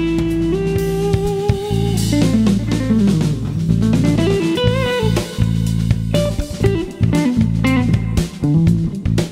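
A band jams: a 1982 Ibanez AS50 hollow-body electric guitar through a 633 Engineering Drive King valve amp plays a single-note lead line over a held bass note and drums. The guitar shakes a held note with vibrato about five seconds in.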